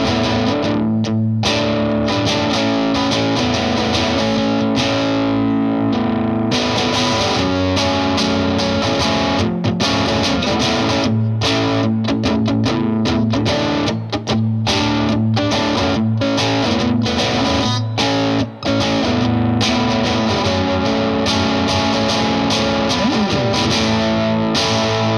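Electric guitar, a Fender Custom Shop '57 Stratocaster, played through an MXR Duke of Tone overdrive pedal in boost mode into a slightly driven Vox AC15 amp: crunchy chords and riffs with frequent short stops, and a slide in pitch near the end.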